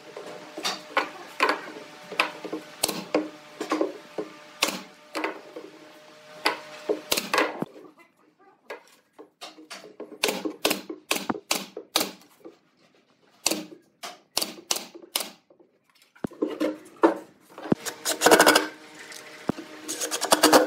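Rapid, irregular clicks and knocks of pine boards being handled and fitted together on a wooden workbench, sparser in the middle and bunched together near the end.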